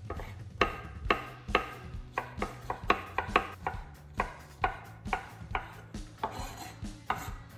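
Chef's knife chopping courgette into small dice on a bamboo cutting board: uneven knocks of the blade on the wood, about two or three a second.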